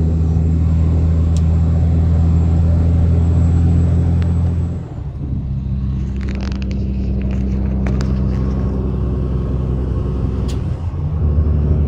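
Steady low drone of a semi-truck's diesel engine heard from inside the cab while driving. Its pitch and character change abruptly about five seconds in and strengthen again near the end, with a few light clicks and rustles in between.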